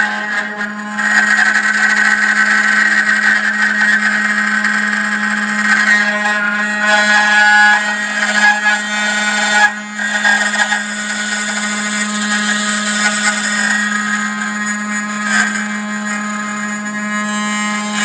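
Desktop CNC engraving machine milling a metal figure: its spindle runs with a steady low hum and a high whine, and the cutting noise rises and falls as the small end mill moves over the workpiece.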